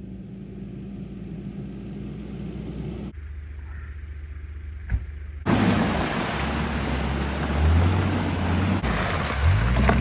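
Off-road vehicle driving, its engine running under steady road and wind noise; the sound changes abruptly several times, becoming much louder and noisier about five and a half seconds in, with the engine revving near the end.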